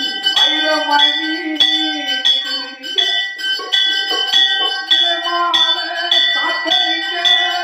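Temple bell rung steadily during an aarti, struck about twice a second so that its ringing never dies away.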